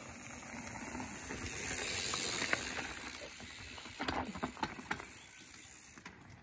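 A mountain bike coming down a dirt trail and passing close by, its tyres hissing and crunching on the dirt, swelling as it nears and fading as it rides away. Around four to five seconds in there is a quick run of clattering knocks and footfalls as the bike and a running dog go past.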